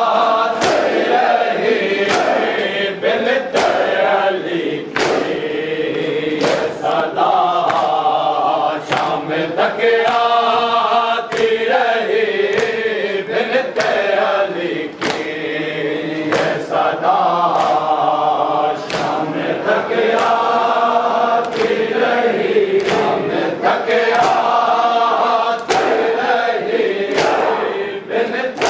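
A group of men chanting a mourning lament together, with a steady rhythm of sharp chest-beating slaps, roughly one a second, keeping time with the chant.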